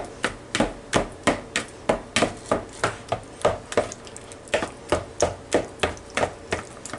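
Ripe bananas being mashed by a gloved hand in a mixing bowl, a rhythmic run of squishing pats about three a second.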